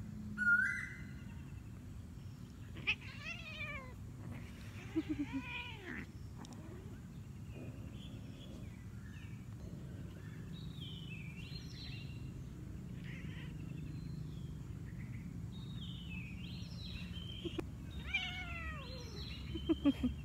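Cat meowing several times: drawn-out, sliding meows about 3 and 5 seconds in and a couple more near the end, over a low steady hum.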